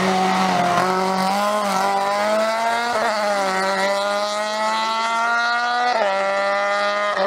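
Rally car accelerating hard away out of a bend, its engine revs climbing and dropping sharply at gear changes about two, three and six seconds in.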